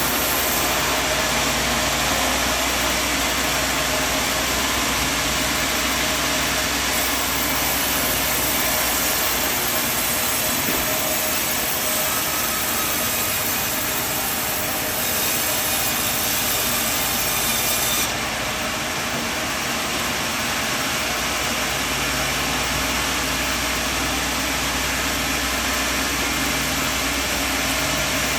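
Sawmill machinery running steadily: a low engine hum under a dense, loud hiss. The hiss drops slightly about eighteen seconds in.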